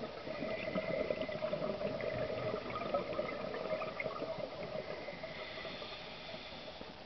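Underwater sound picked up through a camera housing: a dense, continuous crackling and bubbling with a faint steady hum, easing off slightly near the end.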